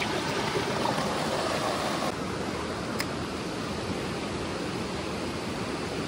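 Mountain stream flowing over rocks, a steady rush of water, a little louder for the first two seconds and then slightly softer. A single sharp click about three seconds in.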